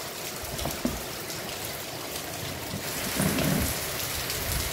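Heavy rain falling on a flooded paved street, a steady hiss of drops on running water that grows louder about three seconds in.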